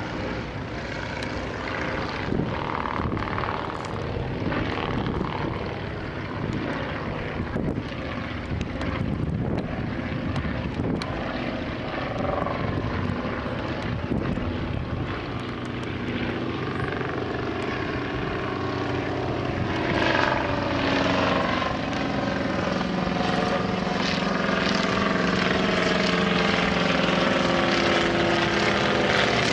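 Piston engines of World War I replica aircraft droning as they fly overhead. The engine note grows louder and steadier in the last third as a Fokker Dr.I triplane replica passes close.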